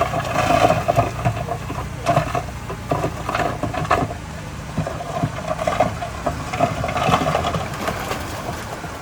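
Heavy earthmoving machinery at work: an engine running steadily under irregular clanking and rattling, the whole sound easing off toward the end.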